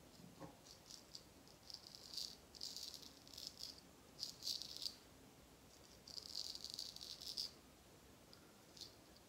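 A straight razor scraping through lathered stubble on the neck in a series of short strokes, each a faint, crackling rasp.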